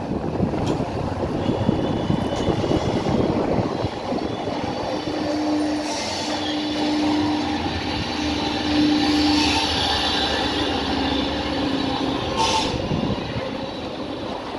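Steady mechanical rumble of a running vehicle, with a low droning tone from about five seconds in until about twelve seconds in.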